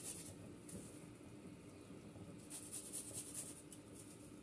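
Garlic clove rubbed against a small metal hand grater: a single rasping stroke near the start, then a quick run of strokes, about six a second, from about two and a half seconds in for about a second.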